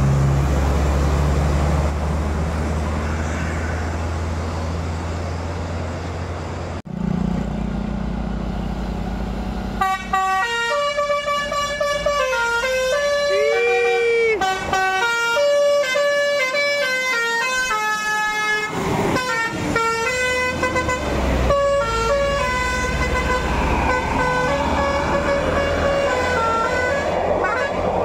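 Tour bus diesel engine running as the bus drives past. From about ten seconds in, a bus's multi-trumpet musical air horn (the Indonesian 'telolet') plays a tune of clear, stepped notes, with one short swooping note a few seconds into the tune.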